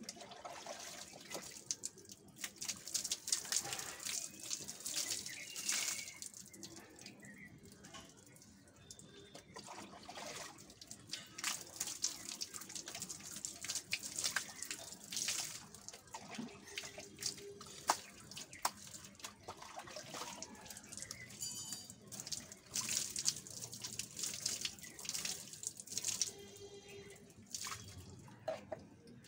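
Water poured from a plastic mug over long hair, splashing and pattering onto a wet concrete floor in repeated, irregular pours, with the mug dipped into a plastic tub between pours.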